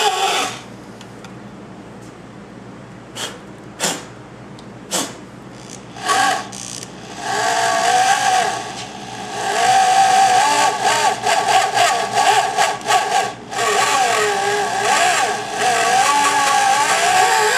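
Electric drill in reverse driving a drill-out extractor bit into a broken exhaust manifold stud on a KA24DE cylinder head, cutting slowly. The motor starts and stops in short bursts at first, then runs more steadily from about halfway, its whine wavering up and down in pitch as the trigger and the load change.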